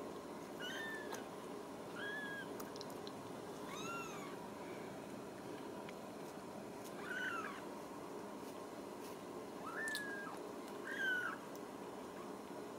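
Young Ragdoll kittens mewing: about six short, high mews that rise and fall in pitch, spaced one to three seconds apart, faint over a steady background hum.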